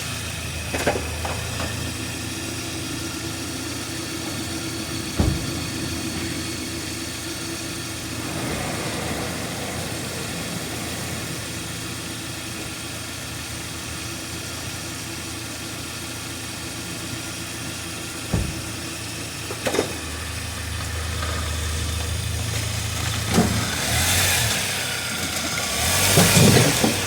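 A car driving, with steady engine and road noise and a few sharp single knocks scattered through it. The knocks are the front-end clunk over bumps, which was traced to a worn sway bar (stabilizer bar) link.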